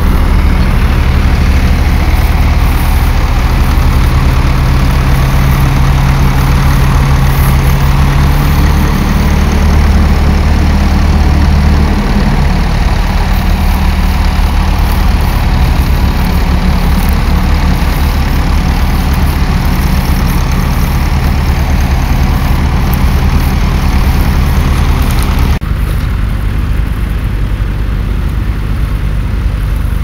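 Tractor engines running steadily under load while ploughing, the first an orange Massey Ferguson 65. The engine sound shifts about twelve seconds in and changes abruptly, getting quieter, about twenty-five seconds in as a different tractor takes over.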